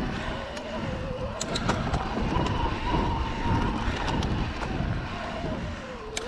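Electric mountain bike ridden fast down a dirt trail: a steady rumble of tyres on dirt and wind on the microphone, with the motor's whine wavering up and down in pitch. A few sharp rattles come from the bike over bumps.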